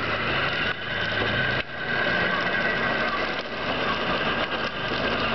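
Electric drive motors of children's battery-powered ride-on toys, a 12-volt quad and a 36-volt mini motorbike, running flat out in a race, giving a steady whine over a low hum.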